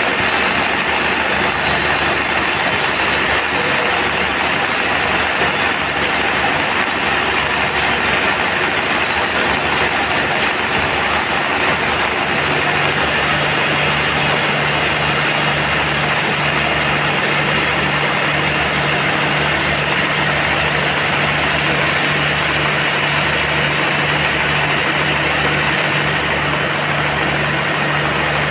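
Band sawmill running steadily. About halfway through, the high hiss drops away and a steady low hum with a regular pulse about once a second takes over.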